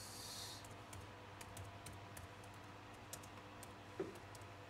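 Faint, irregular clicks of typing on a computer keyboard, with a short hiss at the start.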